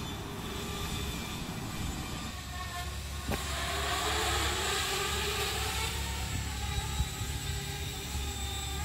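An S550 hexacopter's six brushless motors and propellers whine as it descends, the pitch wavering up and down as the motors adjust.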